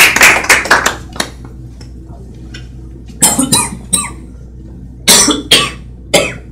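Applause dying away about a second in. It is followed by several short, loud coughs in a small room, about four or five spread over the next few seconds.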